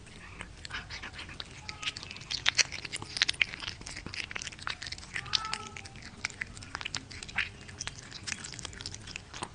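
A cat eating raw meat: rapid wet chewing and lip-smacking clicks, thickest and loudest about two to four seconds in, with a few faint short cat calls between them.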